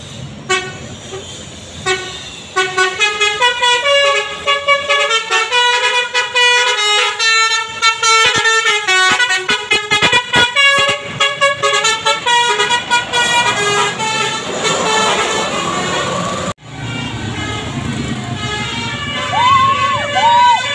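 Bus's Basuri multi-tone telolet horn playing a quick melody, its notes changing several times a second for about ten seconds. Afterwards the bus engine runs close by, with a few short rising-and-falling tones near the end.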